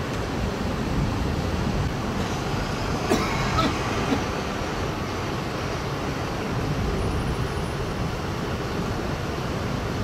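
Steady road traffic noise from the city: a continuous low rumble of passing vehicles. There are a few brief sharp sounds about three to four seconds in.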